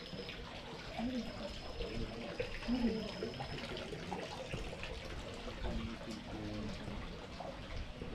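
Hot spring water running and trickling into a footbath, with people talking in the background.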